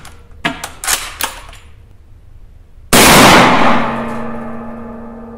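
Mosin-Nagant 91/30 rifle in 7.62x54R: a few sharp metallic clacks as the bolt is cycled, then about three seconds in a single rifle shot whose report rings and dies away slowly in the indoor range.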